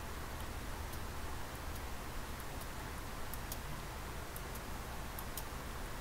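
Computer keyboard keys being pressed one at a time: faint, light clicks, often in quick pairs as a letter key is followed by the space bar, over a steady low hum.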